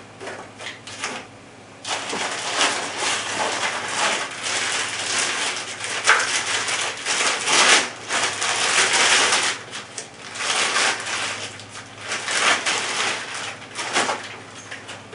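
Rustling and crinkling of packaging being handled, in irregular bursts with scattered clicks.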